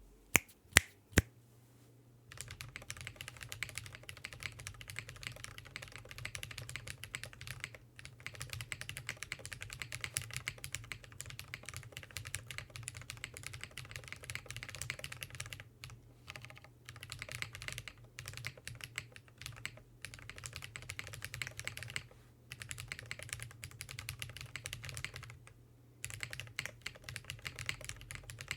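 Typing on a KBDfans KBD8X MkII tenkeyless keyboard with lubed Drop Holy Panda tactile switches in a full FR4 plate, gasket-mounted, with GMK keycaps: dense runs of keystrokes broken by a few short pauses. The run is preceded by three sharp, louder clicks in the first second or so.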